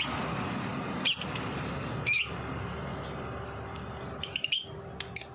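Lovebird giving short, sharp, high squawks: three single calls about a second apart, then a quick cluster of calls near the end, over a steady background hiss.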